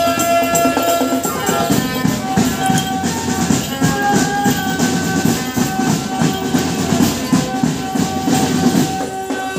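Marching drum band playing: rapid, dense drumming under a melody of long held notes.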